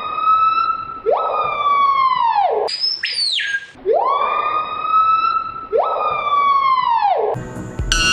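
A bird's loud, siren-like calls: long cries that rise, hold and fall away, two in a row, with thin falling whistles above them and a short high falling whistle between the pairs; the same sequence repeats once. Music comes in near the end.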